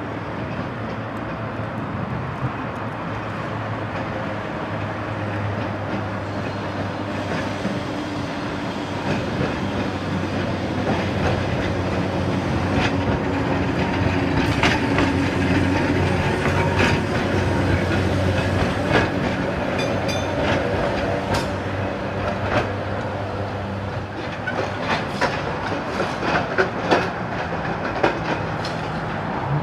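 A 1916 bogie electric tram, Ballarat No. 37, running past over a steady low hum, its wheels clicking over the rail joints. It grows louder as it comes close, then gives sharper clicks and knocks as it moves away.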